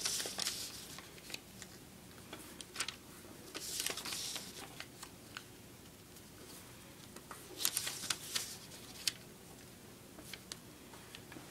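A sheet of paper being folded and creased by hand: soft rustling that comes in three short bursts, near the start, about four seconds in and about eight seconds in, with scattered light ticks and scrapes between them.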